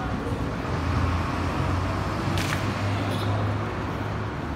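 Road traffic: a motor vehicle's low engine hum, steady and swelling through the middle, over general traffic noise, with a sharp click about two and a half seconds in.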